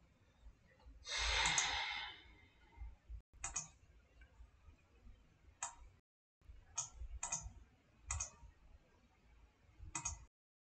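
Computer mouse clicks, single or in quick pairs every second or so. A person's breathy sigh about a second in is the loudest sound.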